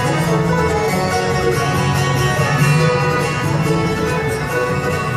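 Live bluegrass band playing an instrumental passage on fiddle, five-string banjo, upright bass, acoustic guitar and mandolin, at a steady level with no singing.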